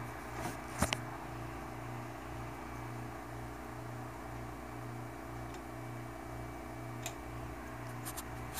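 A low hum that pulses about twice a second, with a few faint clicks.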